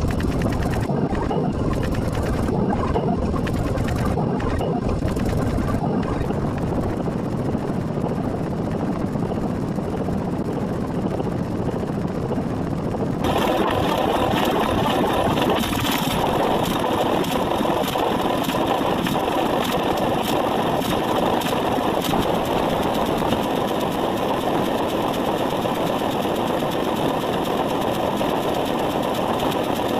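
A steady, loud, engine-like mechanical drone that turns brighter and harsher about thirteen seconds in.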